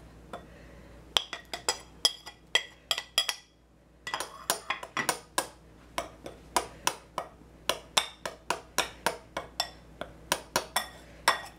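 Table knife cutting butter into flour and powdered sugar in a glass mixing bowl, the blade clinking against the glass again and again. The first few strikes ring briefly; from about four seconds in the taps come steadily, about three a second.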